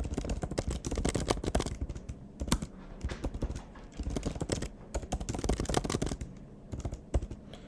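Typing on a computer keyboard: rapid runs of key clicks, thinning to a few last keystrokes near the end.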